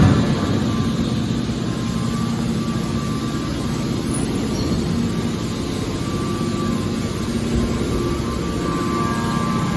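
Hydraulic scrap metal baler shear running, with a steady machine drone and hum from its hydraulic power unit. A single loud clank comes right at the start.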